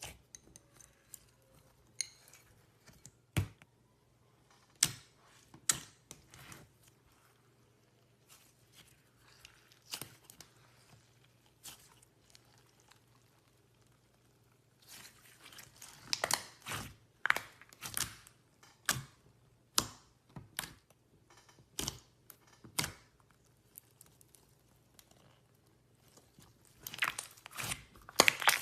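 Clear slime being handled, stretched and pressed, giving sharp scattered pops and clicks that come more often in the second half.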